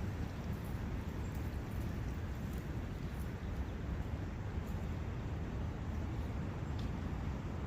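Forest ambience: a steady rush of wind with a brook running, heaviest in the low rumble, with a few faint ticks high above.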